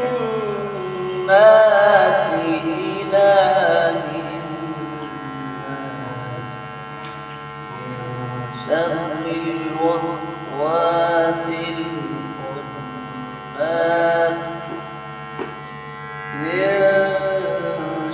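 A man reciting the Quran in melodic qirat style through a microphone, in several long, drawn-out phrases with short pauses between them. A steady electrical mains hum runs underneath.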